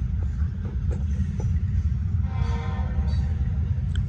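CSX freight train of covered hopper cars rolling through a grade crossing: a steady low rumble of wheels on rail, with a few sharp clicks and a brief higher tone a little past the middle.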